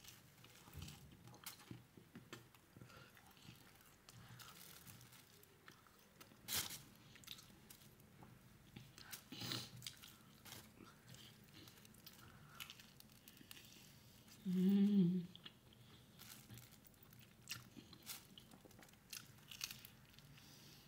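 A person biting and chewing a soft sandwich close to the microphone, with soft mouth clicks and a couple of sharper crunchy bites. A short voiced sound comes about two-thirds of the way through.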